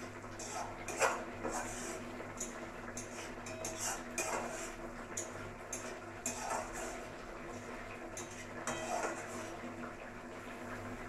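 Spatula scraping and knocking against a metal kadai as a thick rohu fish curry is stirred, in irregular strokes a second or so apart.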